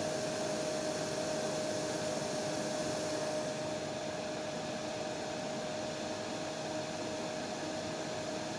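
Hair dryer running: a steady rush of air with a single humming tone through it. The high part of the hiss dims slightly about three and a half seconds in.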